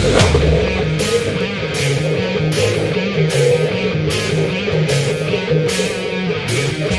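Rock music with guitar, a repeating bass line and a steady drum beat.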